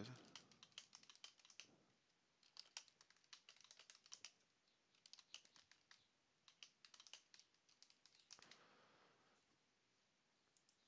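Faint typing on a computer keyboard, in several short bursts of keystrokes with pauses between them.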